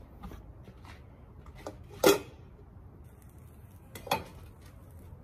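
A metal cooking pot and utensils clanking: a few light clicks, then a loud clang about two seconds in and a second clang about four seconds in.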